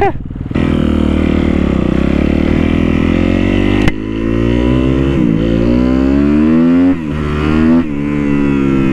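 Motorcycle engine running at speed, then accelerating hard, its pitch climbing and dropping back three times in quick succession as it upshifts through the gears.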